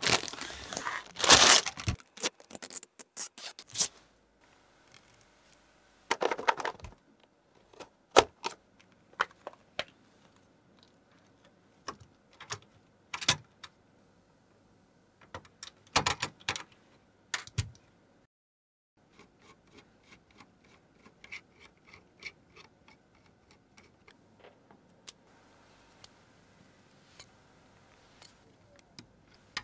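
Computer hardware being handled close to the microphone: irregular clicks, taps and short scrapes, with louder bursts of rustling near the start and around six and sixteen seconds in, and softer ticking later on.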